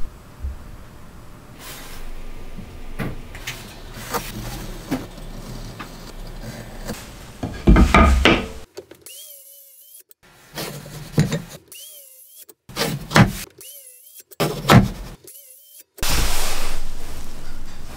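Timber and hand tools handled on a wooden workbench: scattered knocks, taps and scrapes as a steel square and boards are set down and moved. There is a louder clatter about eight seconds in and a steady rushing noise in the last two seconds.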